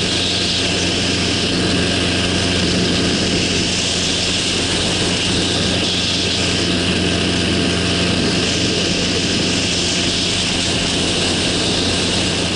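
A minitrike's small engine and pusher propeller drone steadily in level cruise, with a constant hiss of rushing air over the wing-mounted microphone.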